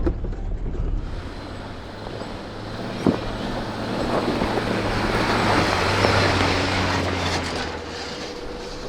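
Jeep driving on a dirt trail: a steady low engine hum under tyre and road noise that swells in the middle, with a single knock about three seconds in.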